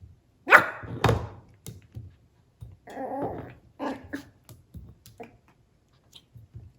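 Chihuahua-poodle mix puppy barking: two sharp barks about half a second apart near the start, then several more shorter barks in quick runs, with a few knocks of a plate being pushed about between them.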